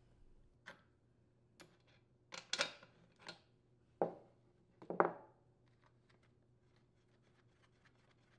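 Light metal clinks and knocks of a T-handle spark plug wrench working a spark plug out of a small hedge trimmer engine: about six short strikes spread over the first five seconds, then it goes quiet.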